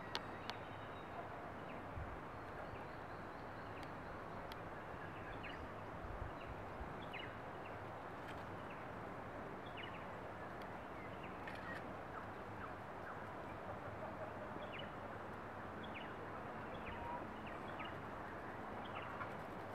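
Steady outdoor background noise with short, high chirps from small birds scattered throughout.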